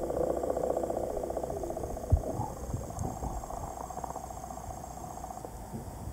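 Underwater sound in shallow water: a rapidly pulsing buzz that fades away over the first three seconds, a single sharp thump about two seconds in, and scattered low knocks.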